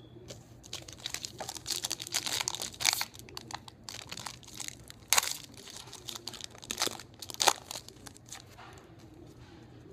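Foil trading-card pack wrapper being torn open and crinkled by hand: a run of irregular crackles, with several sharper crackles in the middle of the stretch.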